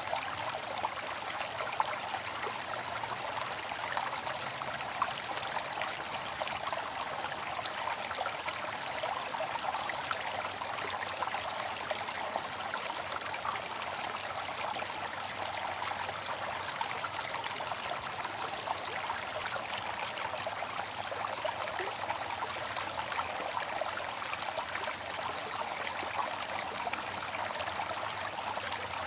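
Water fountain running: a steady splashing and trickling of falling water.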